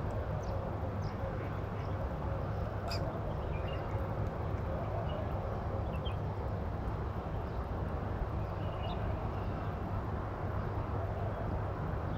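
Steady low rumble of street background noise, with a few faint short chirps and a single light click about three seconds in.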